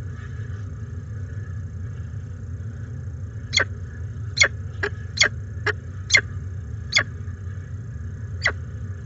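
Peregrine falcons calling at the nest: about eight short, sharp calls, starting a few seconds in and coming roughly half a second to a second apart, over a steady low rumble.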